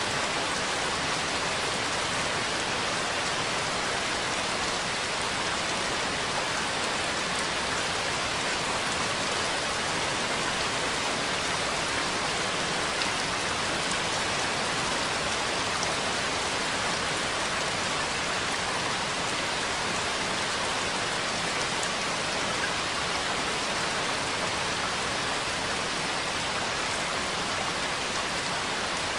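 Steady rain falling: an even, continuous hiss with no single drops, thunder or other events standing out.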